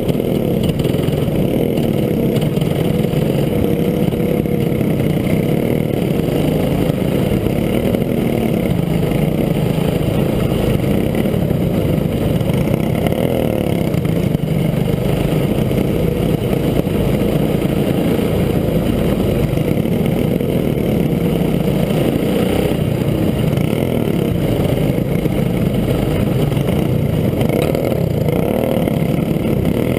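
Racing dirt go-kart's engine running hard, heard from on board, its pitch wavering up and down without a break.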